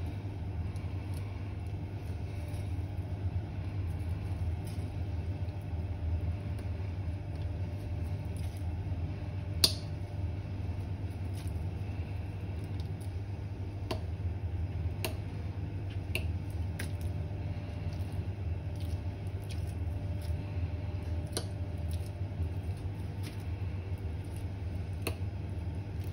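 Steady low hum with scattered light clicks and taps from deboning and trimming sea bream fillets on a plastic cutting board, and one sharper click about ten seconds in.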